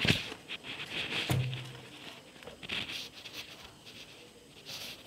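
Handling noises on a desk: a sharp knock as a 7-inch touch-screen display panel is set down, a second thump about a second later, then scattered light taps and rustles.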